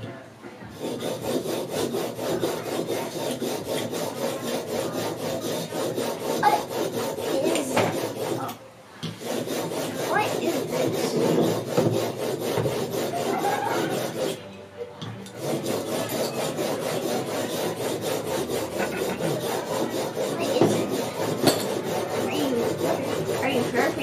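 Plane iron clamped in a honing guide being rubbed back and forth on a sharpening stone: a continuous scraping rub as the bevel is honed, stopping briefly twice.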